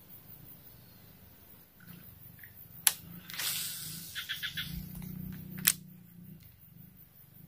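A rod and reel being cast: a sharp click, a rushing swish as the lure flies out with a low whir of the spinning spool, then a second sharp click as the reel is engaged.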